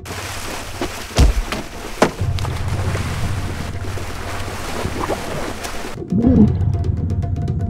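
Heavy water splashing and thrashing at a boat's side as a man is pulled overboard, with two heavy thuds in the first two seconds. About six seconds in the sound cuts to a muffled underwater rumble with bubbling, over a low music drone.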